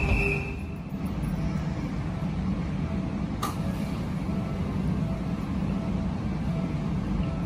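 Electric commuter train's rumble fades out over the first second, with a brief high squeal. Then a steady low hum from a Shin-Keisei 8800 series electric train standing at the platform, with a single sharp click about three and a half seconds in.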